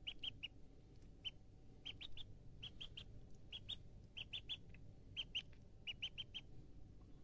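Duckling peeping: short high peeps in quick clusters of two to four, repeating about every second.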